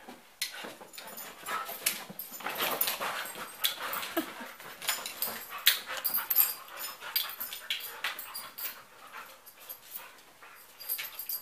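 Two dogs play-wrestling: irregular scuffling and sharp claw clicks on the floor, with short dog vocal sounds mixed in.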